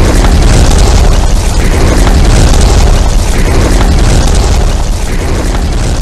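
Explosion sound effect standing for a nuclear blast hitting close by: a very loud, deep, sustained rumble with dense crackling over it, beginning to die away near the end.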